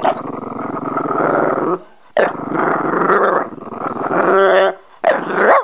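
French bulldog growling: two long growls of about two seconds each, then a short one near the end that rises in pitch.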